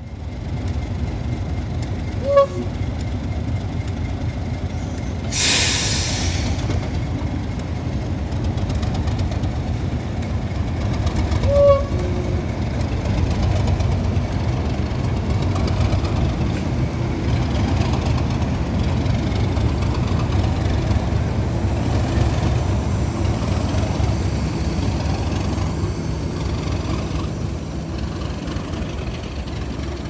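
Two Class 37 diesel locomotives with English Electric V12 engines working under power as they pull away with a snowplough, a steady low engine rumble. A brief loud hiss comes about five seconds in.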